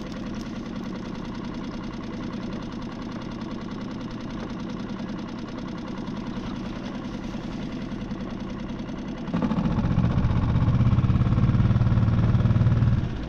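A small boat's outboard motor idling steadily, then throttled up for a few seconds about nine seconds in before dropping back near the end.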